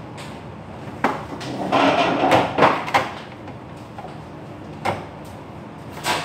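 Kitchen cupboards and their contents being handled: a knock about a second in, a couple of seconds of clattering, then two more single knocks near the end.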